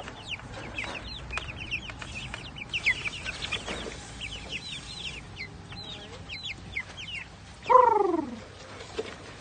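Young chickens peeping, many short high peeps that slide down in pitch, overlapping in a steady chatter. Near the end, one louder and longer call falls in pitch.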